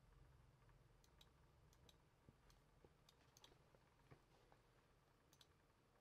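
Near silence: room tone with about nine faint, scattered computer mouse clicks, a few of them close together around the middle.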